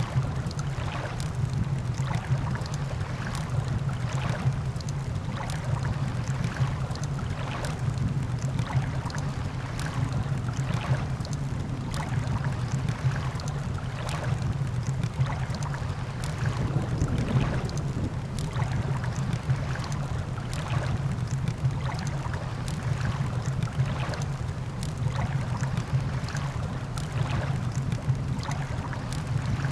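Campfire crackling with frequent sharp, irregular pops over a steady low rumble of surf and wind.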